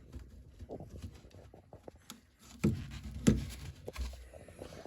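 Hands working inside a combi boiler, unplugging the cable from the flow sensor: scattered small clicks and rattles of plastic and metal parts, with two louder knocks about two and a half and three seconds in.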